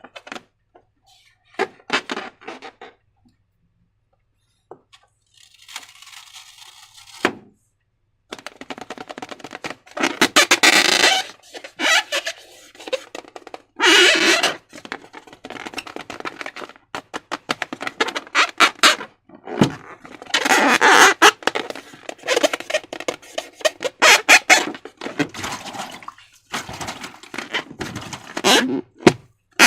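Slime being squished and worked by hand, with bursts of wet squelches, crackles and clicks and a short hiss about six seconds in.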